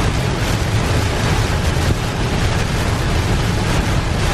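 Heavy rain hitting a moving car, heard inside the cabin together with tyre and road noise: a steady, loud rush.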